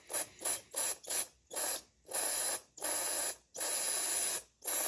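Aerosol brake parts cleaner sprayed into a hydraulic lifter's centre hole in hissing squirts: about six short ones, then four longer ones from about two seconds in. It is flushing gunked-up dirty oil out of the lifter's oil passages, a fix for lifter tick.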